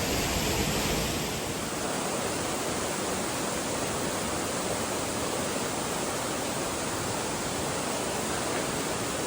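Waterfall rushing steadily: an even wash of falling water with no pattern or rhythm. The deepest part of the sound drops away about a second and a half in.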